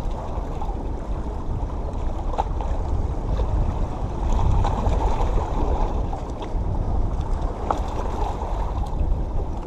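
Wind on the microphone and small waves washing against the jetty's rocks, a steady rush with no breaks.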